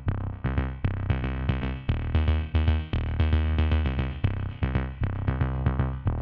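Electronic background music with a drum-machine beat and a heavy bass line.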